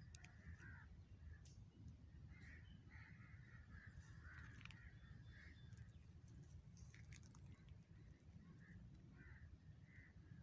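Faint crows cawing, repeated at irregular intervals, over a low steady rumble.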